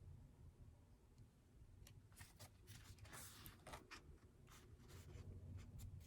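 Faint rustles and light scrapes of paper, a K-pop album's photobook pages and inserts being handled and turned, in short irregular bursts from about two seconds in.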